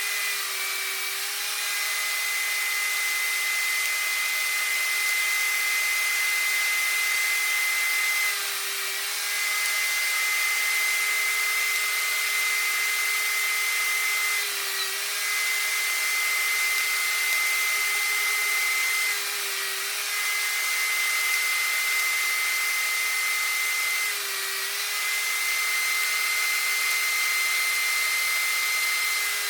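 Power tool cutting dadoes across wooden cross pieces: a steady motor whine whose pitch dips briefly about every five seconds as the cutter takes load on each pass.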